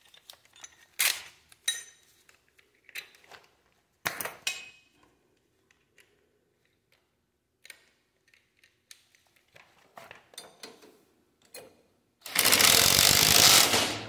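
Scattered metal clinks and rattles of tools and hardware being handled, then, about twelve seconds in, a cordless impact driver hammering a bolt into the disc-brake caliper bracket on the front spindle for almost two seconds, the loudest sound here.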